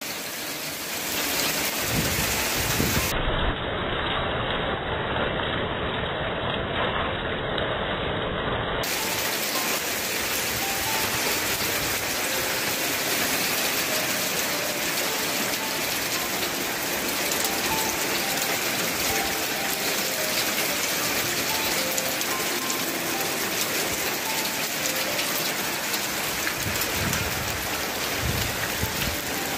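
Hail pelting down on a car and a gravel driveway: a dense, steady patter of countless small hits, going on throughout.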